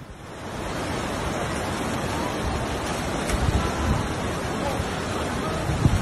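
Floodwater rushing down a swollen, muddy river as a steady, even noise, with wind buffeting the microphone in low gusts in the second half.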